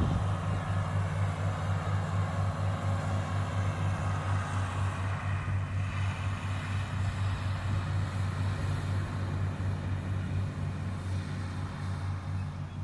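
Farm tractor's engine running steadily as it pulls a hay mower along the road: a low, even, throbbing drone.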